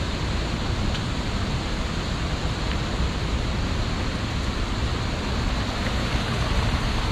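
Tall waterfall's falling water in a steady, even rush.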